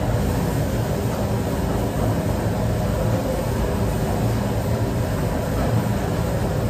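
Steady rumbling rush of a commercial kitchen's ventilation, the extractor hood fans running with a low hum underneath.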